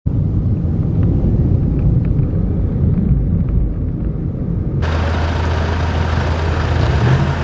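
Muffled low rumble of a vehicle on the move. About five seconds in it cuts to brighter outdoor traffic noise over a steady low hum.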